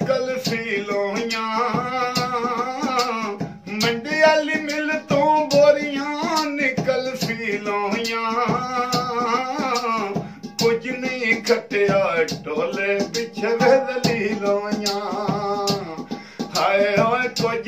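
Male voice singing a Punjabi mahiye folk melody in long, wavering phrases with short breaks between them, accompanied by steady hand-tapping on a pot used as a drum.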